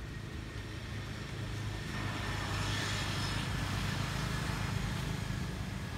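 A motor vehicle passing: a low engine hum with tyre hiss that swells about two seconds in and fades near the end.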